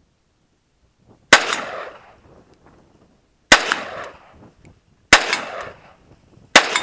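Four single rifle shots from an AK-47, fired one at a time about one and a half to two seconds apart. Each crack trails off in an echo lasting about half a second.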